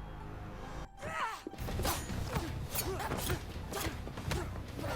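Fight-scene film soundtrack: action score under a rapid run of punch and impact hits and whooshes, with a brief near-dropout about a second in.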